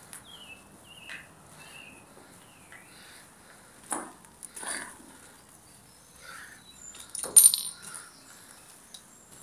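Footsteps scuffing and crunching on a rubble-strewn floor: a few separate knocks, the loudest a sharp clink with a brief ring about seven seconds in. Small birds chirp faintly throughout.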